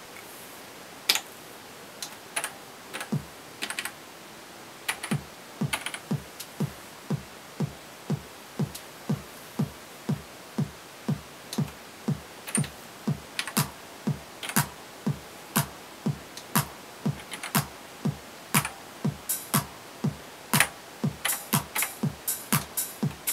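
Roland TR-909 drum machine being programmed. A few scattered clicks and single drum hits, then from about five seconds in its bass drum plays a steady beat of about two hits a second. Sharp clicks of step buttons and higher hits join in, thickest near the end, as the pattern is built up.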